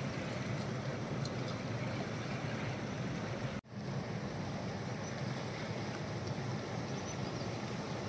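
Fast-flowing river water rushing past rocks: a steady rush of noise that drops out for an instant about halfway through.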